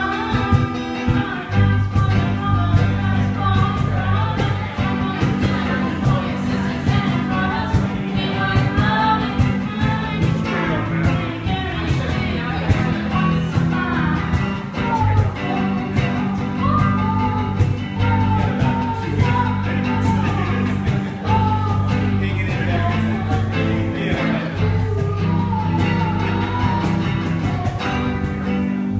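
Small rock band playing live: electric guitar, bass guitar and a cajón keeping a steady beat, with a sung lead vocal over them.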